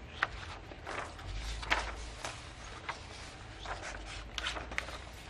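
Sheets of drawing paper being handled: irregular short rustles and soft taps, about a dozen, over a faint low room hum.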